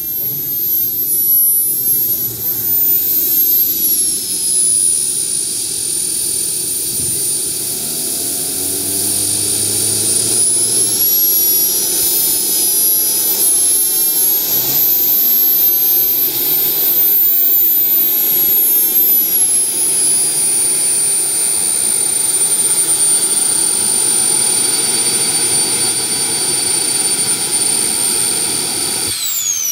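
Twin model jet turbines of a large RC Me 262 whining at taxi power, the high pitch rising and falling several times with the throttle, then holding steady. Near the end the whine drops steeply as the turbines are shut down and spool down.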